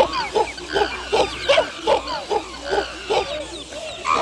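Several chimpanzees calling at once, many short arched calls overlapping at about three a second.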